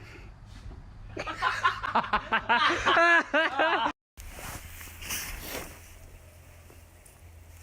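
A person laughing hard in a quick string of high-pitched bursts for about three seconds, cut off suddenly.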